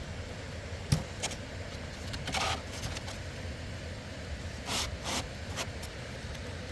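Steady low outdoor rumble, with a sharp knock about a second in and several short scraping handling noises later on.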